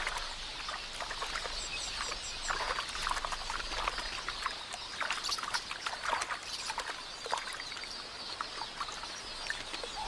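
A large flock of quelea chattering in a dense, continuous twitter, with water splashing.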